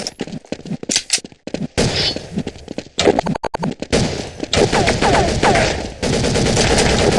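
A run of farts from several short clips cut one after another, each a quick train of pulses, the longest and loudest from about 6 seconds in.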